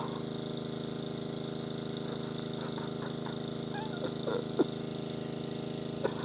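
A steady, even droning hum from a running motor, with a few brief faint sounds over it near the middle.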